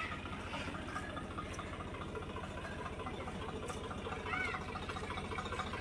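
Tractor diesel engine idling steadily with an even low rhythmic beat.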